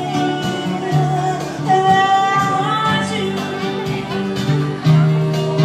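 Live music: an electronic keyboard accompaniment with a woman singing into a microphone, long held notes over a steady backing.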